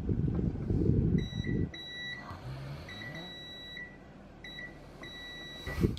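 ANENG AN-999S bench multimeter's continuity buzzer beeping on and off in a steady high tone, in several short and longer stretches, as the test probe touches points on a small circuit board. A low rumble of handling noise opens it, and a loud thump comes just before the end.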